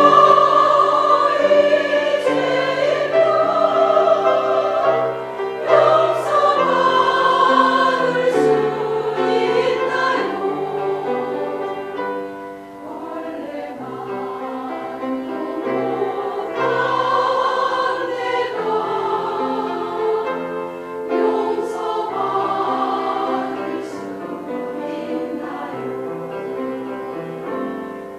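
Church choir singing a praise hymn in parts, with long held notes over a low bass line.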